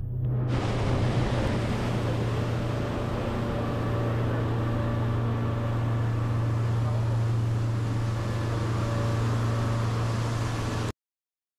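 Twin Suzuki outboard motors running steadily at speed, a constant low drone over the rush of the boat's wake. The sound cuts off suddenly near the end.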